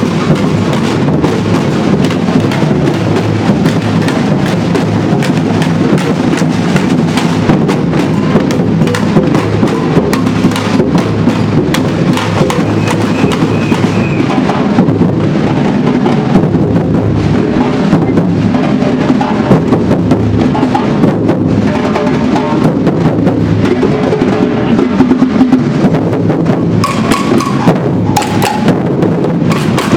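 A street percussion band of many drummers playing together with sticks: a loud, dense, driving drum rhythm that never pauses, with sharper, brighter strikes near the end.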